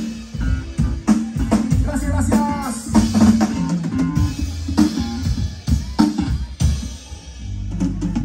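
A live dance band playing, with drums and percussion driving a steady beat over bass guitar and keyboard.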